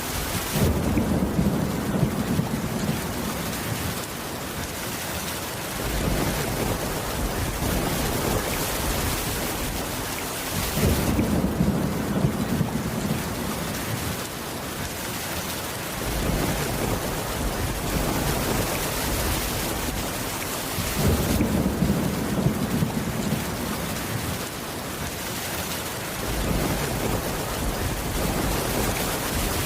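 Steady rain with low thunder rumbling three times, about ten seconds apart.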